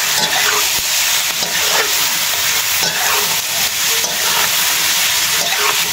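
Pork meat and pork intestines sizzling steadily in hot oil in a wok while being stirred, with scattered short scrapes from the stirring.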